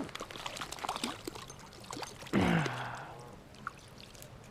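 Water splashing and trickling as a freshly landed rainbow trout is handled at the water's edge, with many small ticks and rustles. About two seconds in comes a short, louder sound that falls in pitch.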